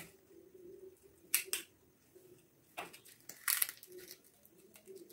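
Crisp, brittle cracking of a hollow fried panipuri shell being broken open with the fingers: a couple of sharp cracks about a second and a half in, then a longer crackle around three to three and a half seconds in.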